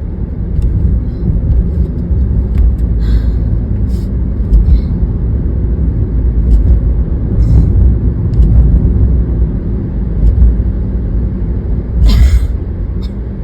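Steady, loud low rumble of road and engine noise inside a moving car. A few short, sharp bursts stand out over it, the loudest near the end.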